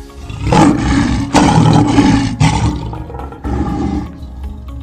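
Big-cat roaring played from a recording: a run of loud roars for about two and a half seconds starting half a second in, then a shorter roar about three and a half seconds in.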